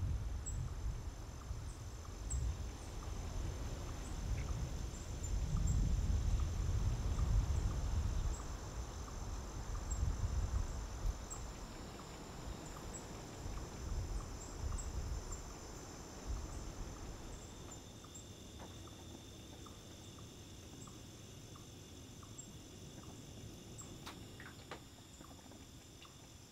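Night-time outdoor ambience: a low, gusting rumble like wind buffeting the microphone for the first two-thirds, with faint steady high-pitched ringing throughout. Partway through, the rumble drops away, leaving a quieter, thin ambience with a few faint clicks and ticks.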